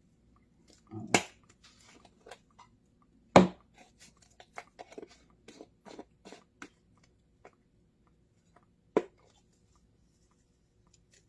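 Handling of a spice shaker: sharp clicks and taps, the loudest about three seconds in, with a run of light quick ticks as powder is shaken out, and another sharp tap near the end.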